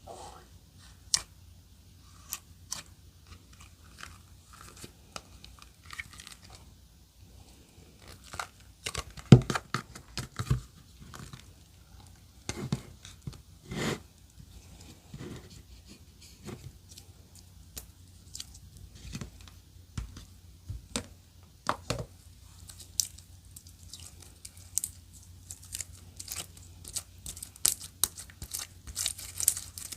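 Clear slime being squeezed and pressed by hand, giving irregular sticky clicks and pops. A louder run of pops comes about nine seconds in, and the crackling grows quicker and brighter near the end.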